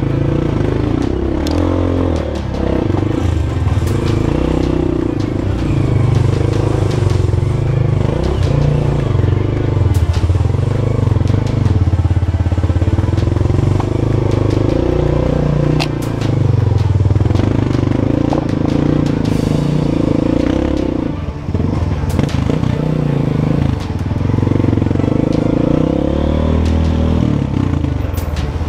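Small single-cylinder four-stroke trail motorcycle engine running under changing throttle, its pitch rising and falling every second or two, with scattered knocks and clatter from the bike riding over rough ground.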